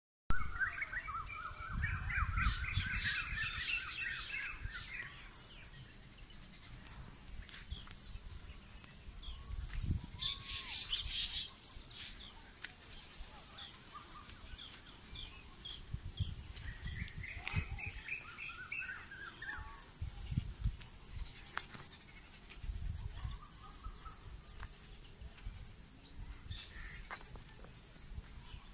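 Outdoor evening ambience: a steady, high-pitched insect chorus, with birds calling in groups of quick repeated notes several times, and occasional low rumbles on the microphone.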